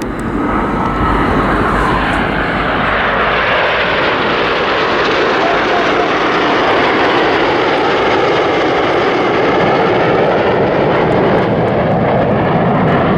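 Steady, loud jet roar of the Red Arrows' BAE Hawk T1 jets, two sections of the team flying a crossing pass.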